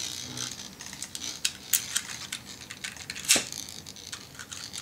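Light, irregular clicks and clinks of Beyblade tops and launcher parts, with one sharper click about three and a half seconds in.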